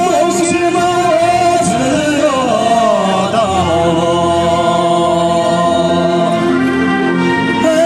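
Singing over a backing track played loudly through a portable PA loudspeaker, with long held notes that waver in pitch.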